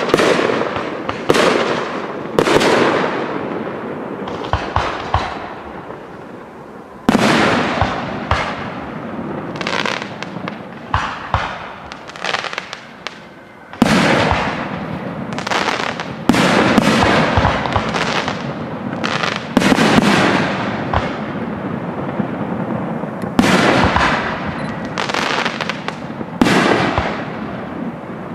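Aerial firework shells bursting in quick succession, sharp bangs every second or two, each rolling off in a long echoing rumble, with a couple of brief lulls between volleys.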